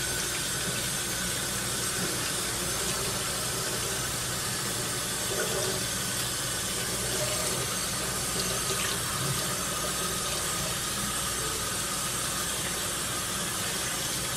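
Kitchen faucet running steadily into a stainless steel sink while a wet T-shirt is rinsed and squeezed by hand under the stream.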